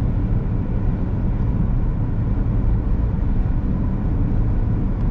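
Steady low rumble of tyre and engine noise heard inside a car's cabin while it is driven along a highway.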